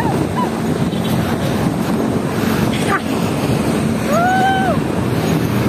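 Wind buffeting a phone's microphone over the steady noise of traffic on a busy road, with a brief rising-then-falling tone about four seconds in.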